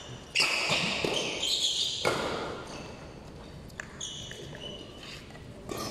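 Badminton play in a large hall: two sharp racket strikes on the shuttlecock, about half a second and two seconds in, then lighter knocks and footsteps of players on the court, all with the hall's echo.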